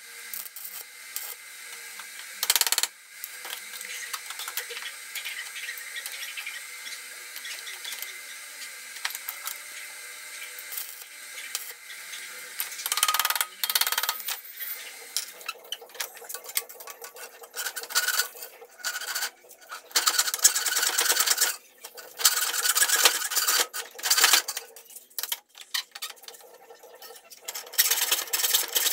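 Stick-electrode arc welding on a small steel part clamped in a vise, a steady hiss through the first half. From about halfway, a hacksaw cutting through a steel ring in the vise in uneven back-and-forth strokes.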